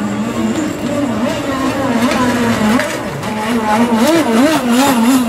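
High-revving engine of a C Class model racing catamaran (up to 30cc, nitro or petrol) running flat out, its pitch wavering rapidly up and down. It grows a little louder near the end.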